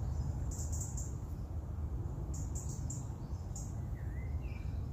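Birds chirping in short high bursts, with one brief rising call about four seconds in, over a steady low rumble of wind on the microphone.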